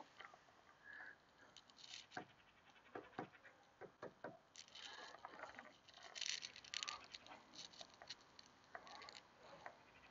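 Near silence, with faint, scattered small ticks and rustles throughout.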